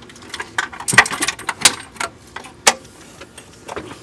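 Irregular clicks, rattles and light knocks of engine parts being handled, as an intake manifold and its lines are worked into place. A cluster of rattling comes about a second in, then a few single sharper knocks.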